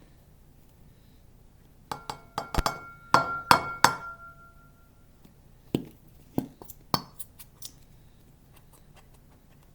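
Hard clinks and knocks against a bowl, several close together, the loudest leaving a short bell-like ring. A few lighter single taps follow.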